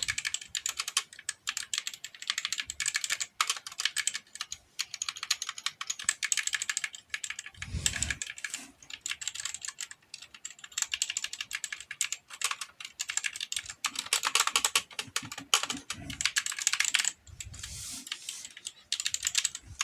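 Typing on a GK61 60% mechanical keyboard with pudding keycaps: fast, dense keystroke clatter in bursts with brief pauses.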